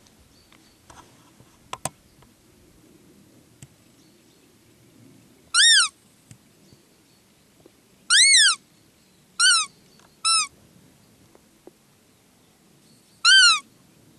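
Roe deer lure call sounded to imitate a doe's fiep in the rut: five short, high-pitched squeaks, each rising and falling in pitch. One comes about a third of the way in, then three in quick succession, then one near the end. A couple of faint clicks come early.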